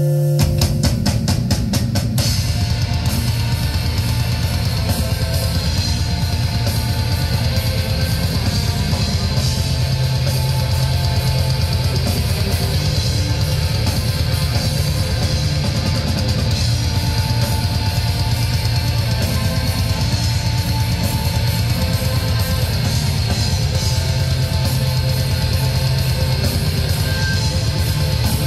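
Black metal band playing live: a held guitar note gives way, within the first half second, to the full band coming in with rapid drum strokes and distorted electric guitars in a dense, loud wall of sound.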